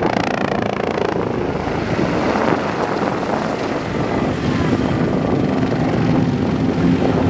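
Military helicopter flying a low display in tight banking turns, its rotor and turbine engines running with a dense, steady rumble. A thin high turbine whine over it drops slightly in pitch about halfway through.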